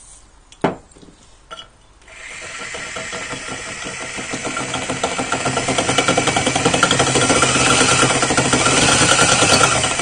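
An electric drill with a masonry bit boring into a ceramic toilet tank lid, enlarging a pilot hole. The drill starts about two seconds in and builds to a loud, steady grinding run. A couple of short knocks come just before it.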